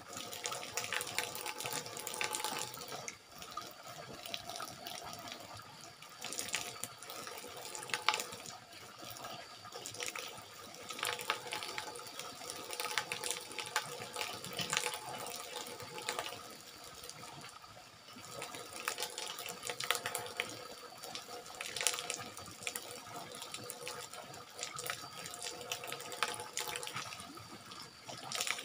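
Water falling in a steady stream from a raised bamboo pipe spout and splashing onto a bamboo-slat floor, with irregular splashes throughout.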